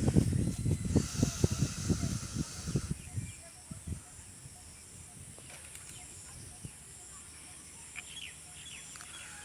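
Rural outdoor ambience: irregular low rumbling and hiss for about the first three seconds, stopping suddenly, then a quieter stretch with a few short bird chirps near the end.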